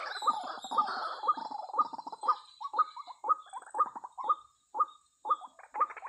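White-breasted waterhen calling: a steady series of harsh, repeated notes, about two a second. The notes run together early on, then come singly, with a short pause shortly before the end.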